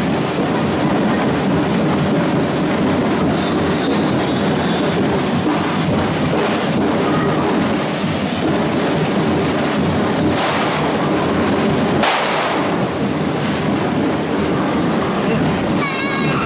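Loud, continuous din of a correfoc: hissing, crackling hand-held firework fountains over percussion, with one sharp bang about twelve seconds in.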